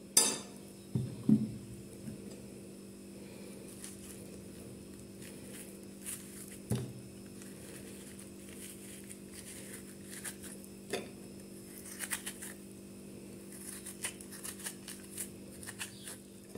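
Teaspoon scraping out the flesh of a zucchini section, giving faint scrapes and clicks every few seconds over a steady low hum.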